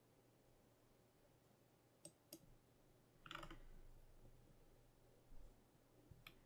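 Near silence with a few faint computer mouse clicks: two close together about two seconds in and one more near the end, plus a short soft rustle about three seconds in.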